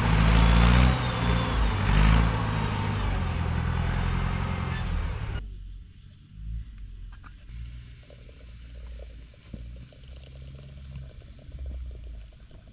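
A motor engine running steadily with a low hum and noise over it, which stops abruptly about five seconds in, leaving quieter sound with faint scattered clicks.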